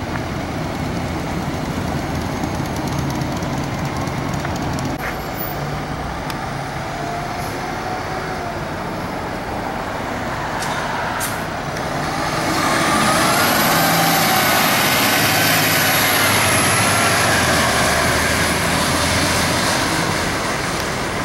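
A Pierce fire engine's diesel idles with a short air-brake hiss. About twelve seconds in, a siren comes on with a rising and falling pitch over the engine, and the sound gets louder as the engine responds.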